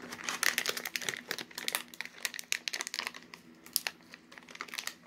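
Clear plastic zip-top bag of popcorn crinkling as it is handled, in quick irregular crackles that thin out over the last couple of seconds.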